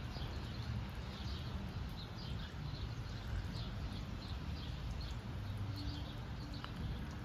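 Small songbirds chirping over and over, about two short chirps a second, above a steady low rumble.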